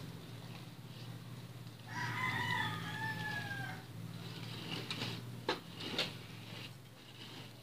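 A rooster crows once, a drawn-out call of nearly two seconds that falls slightly in pitch at the end. Later come two sharp knocks of a spatula against a mixing bowl as batter is stirred.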